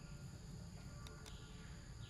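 Faint steady outdoor background noise: a low rumble with thin, steady high tones, and two faint clicks a little after a second in.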